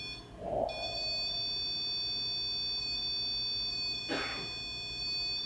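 A ghost-hunting alarm gadget called a 'Choco Pie' sounding a steady, high-pitched electronic tone. It breaks off briefly just after the start, then sounds continuously. The alarm has been set off after staying silent.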